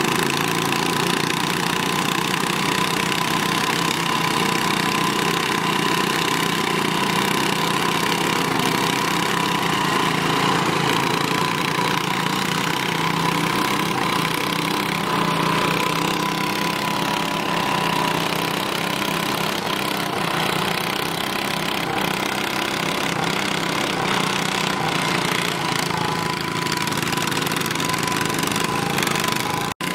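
Modified garden-tractor engines running steadily under load as two lawn tractors pull against each other in a tug-of-war, with a steady high whine over the engine note.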